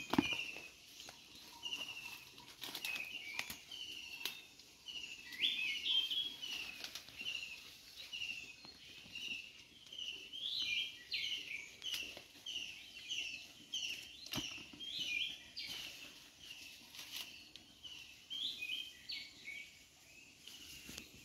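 Birds chirping: a steady run of short, high chirps, two or three a second, with a few sharp clicks among them.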